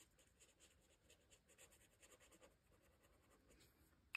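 Faint pen writing on paper, a run of small quick scratching strokes.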